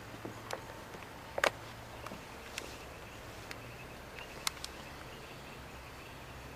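Outdoor ambience with a faint, regular insect chirping, broken by a few sharp clicks, the loudest about a second and a half in and another about four and a half seconds in.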